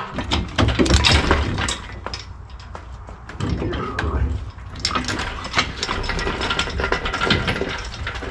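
Steel engine hoist being pushed and shifted in the back of a trailer: irregular metal clanks and knocks, with its lifting chain rattling and its casters rolling.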